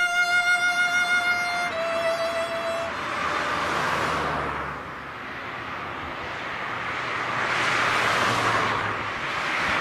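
A violin holds a long note, then a slightly lower one, and stops about three seconds in. Then cars pass by on the road one after another, each swelling and fading.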